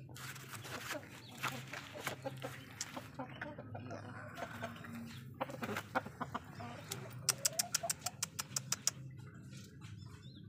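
Chickens clucking, with scattered short clicks and a quick run of sharp clicks about seven seconds in.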